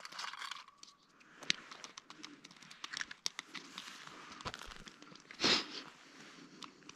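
Light crunching and rustling with scattered small clicks and rubs, as of someone moving about and handling things on snow and ice, with one louder crunch about five and a half seconds in.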